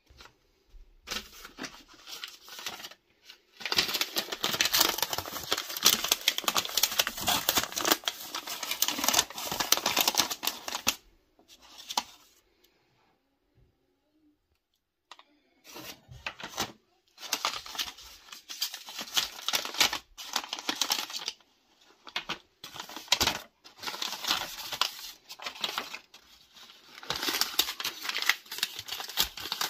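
Stiff brown kraft paper crinkling and tearing as wrapped packets of 7.62×39 ammunition are pulled open, mixed with light clicks of the cartridges and their stripper clips being handled. The rustling stops for a couple of seconds near the middle, then resumes.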